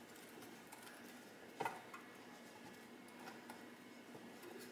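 Faint soft ticks and rubbing as a stick of butter is wiped over the inside of a metal baking pan to grease it, with one slightly louder tap about a second and a half in.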